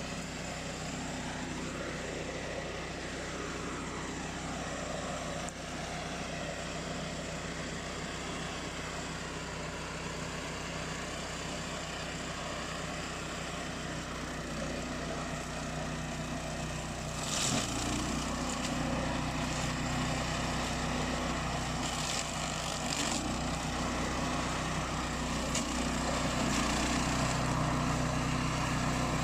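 Remote-control flail mower's engine running steadily. A little over halfway through it grows louder and its pitch wavers, and a few short bursts of noise follow.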